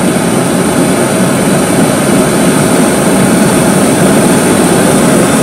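Homemade Ron Reil-style propane forge burner running with a loud, steady rush of burning gas, growing slightly louder partway through.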